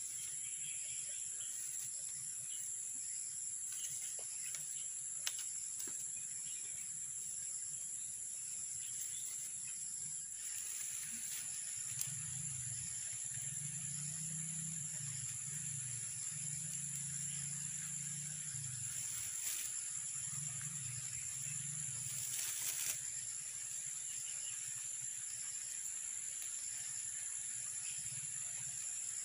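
Steady, high-pitched chorus of insects, two unbroken shrill tones, with a few faint clicks and rustles from plastic strapping and wire being handled and tied.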